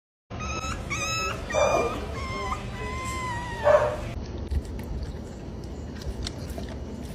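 A bully-breed puppy howling: a few short high yelps, then one longer, wavering howl that stops about four seconds in. After that come soft wet clicks and smacking as an adult bully dog chews a slice of cantaloupe.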